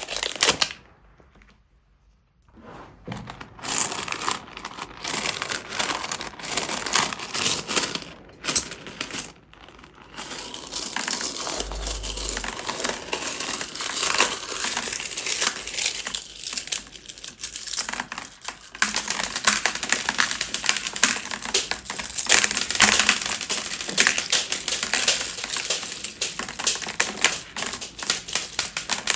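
Slime worked by hand with pieces of plastic bag, giving a dense run of crinkling and fast crackling clicks. The crackle stops briefly about a second in, then picks up again.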